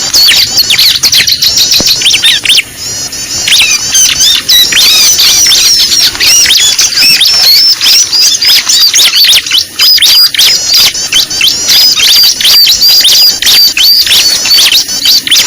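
A chorus of many small birds chattering and chirping at once, dense and continuous: a bird-lure (pikat) recording of a noisy flock of small birds, played to draw wild birds in for catching.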